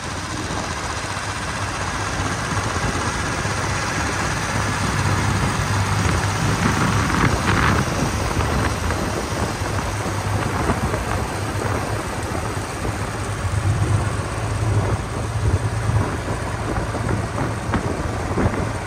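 JCB 3DX backhoe loader on the move on a paved road: its diesel engine runs steadily under a constant hiss of wind and tyre noise, with a couple of brief swells.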